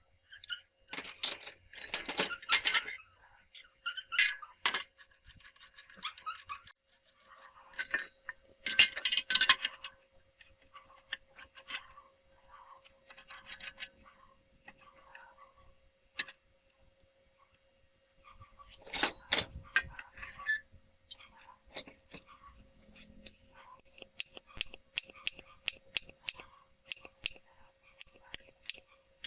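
Metal parts and tools clinking and scraping during workshop handling, with louder scraping a few times and many small sharp clicks.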